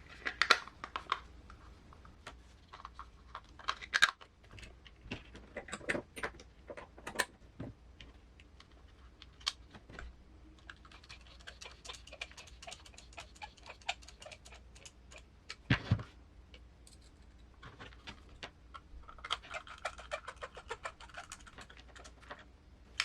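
Clicks and taps of small hard plastic parts and hand tools as a plastic spur cover is fitted to an RC crawler transmission and screwed on. There are two stretches of quicker clattering, at about a third of the way in and again near the end.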